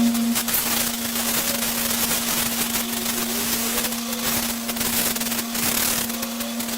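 A high-pressure jet hissing and crackling as it blasts dirt and catkin fluff out of a car radiator, over a steady low hum.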